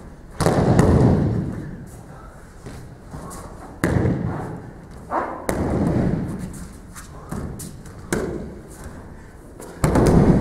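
Aikido throws with breakfalls: a person thrown again and again lands on tatami mats with heavy thuds, about six in ten seconds, each fading away over about a second.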